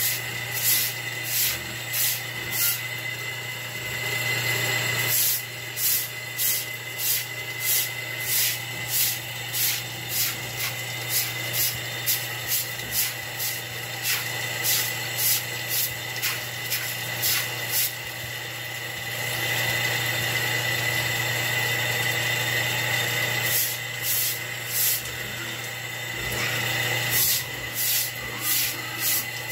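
Hand scrubbing a wet concrete floor under running hose water: rhythmic swishing strokes about two a second, pausing for a few seconds past the middle, over a steady hum.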